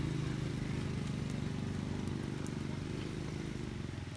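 An engine running steadily: a low, evenly pulsing hum that grows slightly quieter towards the end.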